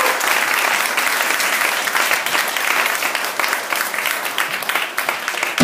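Audience applauding, a dense steady clapping that thins a little toward the end, with one sharp knock at the very end.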